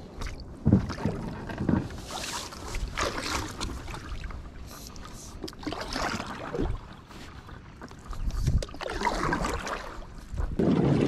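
Stand-up paddleboard paddle strokes in the water: splashing surges every second or two, with a few low knocks. A steady rushing noise comes in near the end.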